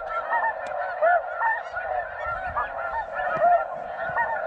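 A large flock of snow geese calling: a dense, unbroken chorus of many overlapping high-pitched honks.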